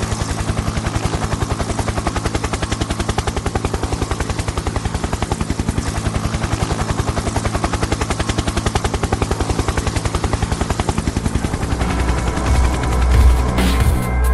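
Spinning rotor blades chopping in a fast, even rhythm, like a helicopter's rotor. Music with a heavy bass comes in near the end as the chopping fades.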